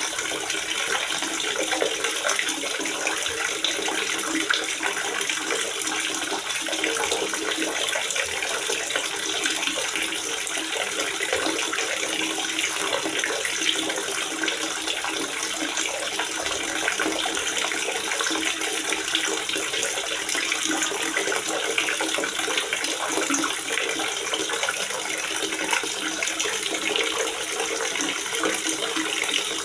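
Water gurgling and splashing steadily into a water reservoir.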